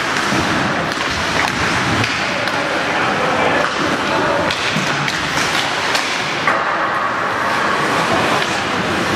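Ice hockey play in a rink: skates scraping the ice under a steady arena hubbub, with several sharp clacks and thuds from sticks, puck and boards, and voices calling out.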